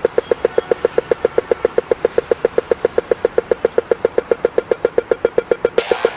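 Pedestrian crossing signal ticking rapidly and evenly, about seven ticks a second, the walk-phase tick. Dance music comes in under it near the end.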